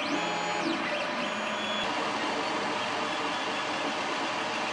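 Ender 3 Pro FDM 3D printer running, with a steady whir from its cooling fans. In the first two seconds its stepper motors whine in rising and falling glides as the print head speeds up and slows down.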